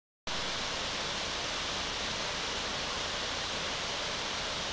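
Waterfall pouring over rocks: a steady, even rush of falling water that starts abruptly just after the beginning and cuts off suddenly at the end.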